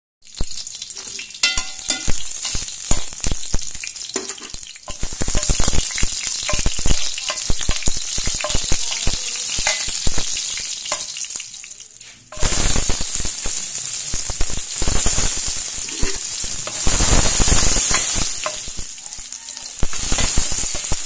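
Chopped garlic and onions sizzling in hot oil in a pan, with a metal spoon stirring and clicking against the pan. About twelve seconds in, the sizzling suddenly gets louder.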